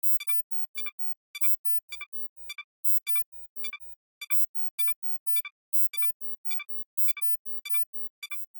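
Electronic toy robot dog's speaker giving a steady series of short, high double beeps, a little under two a second, between its music routines.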